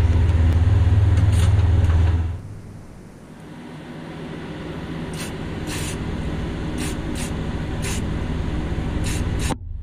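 A steady low machine hum stops about two seconds in. Then a powder coating gun sprays chrome powder onto a small masked part: a hiss of air that builds slowly, with short sharp puffs now and then, cutting off suddenly shortly before the end.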